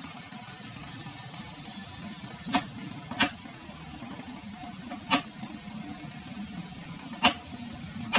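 Thick, creamy bilo-bilo (glutinous rice balls in coconut milk) simmering in a pot: bubbles burst with a handful of sharp pops, one every second or two, over a steady low rumble.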